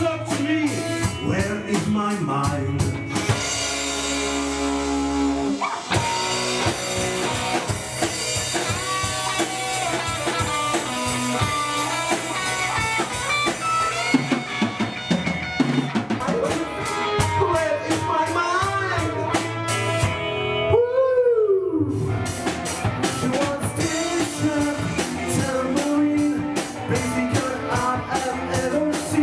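Live pop-rock band playing an instrumental passage on drum kit, bass and electric guitars, with the lead electric guitar playing bent-string lines. Early on the band holds one chord for a few seconds. About two-thirds in, the drums stop briefly under a single note that swoops up and down, then the full band comes back in.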